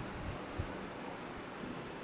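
Steady low background hiss of a room recording during a pause in speech, with no distinct sound.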